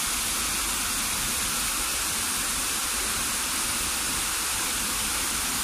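Small rocky waterfall cascading into a pool, a steady, even rush of falling water.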